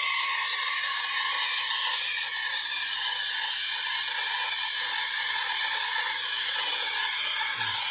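Rancilio Silvia espresso machine's steam wand blowing steam into a pitcher of water: a loud, steady hiss. The wand is working again after being descaled and unclogged.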